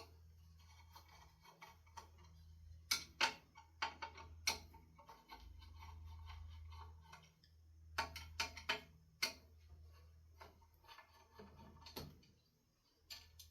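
Scattered sharp clicks and taps of screws and hand tools as a ceiling fan is taken apart, with a few louder knocks, over a low steady hum.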